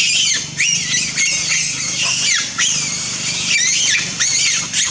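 Monkeys screaming in the trees: overlapping high-pitched squealing calls that bend up and down in pitch, one after another with short gaps.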